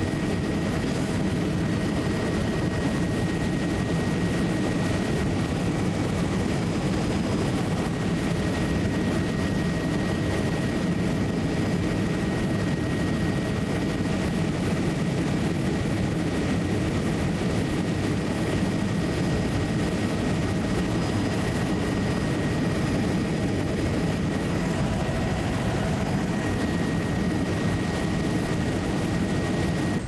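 Steady drone of a low-flying survey aircraft's engine and airframe, heard from inside the cabin, with a thin steady high whine over it.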